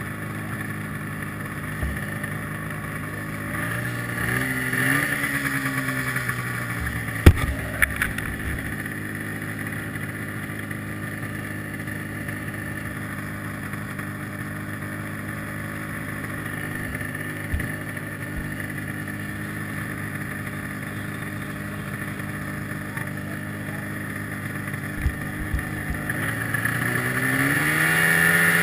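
1995 Arctic Cat ZR 700's two-stroke twin idling steadily under the rider, with a short blip of revs about four seconds in and a few sharp knocks around seven to eight seconds. Near the end the revs climb as the sled pulls forward.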